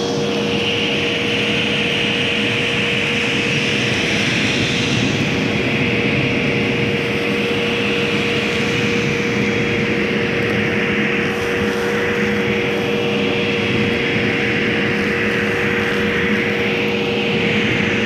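Hoover vacuum cleaner running, a steady motor hum under a rushing of air at the hose nozzle that swells and dips as the nozzle is drawn over shag carpet, sucking up loose debris.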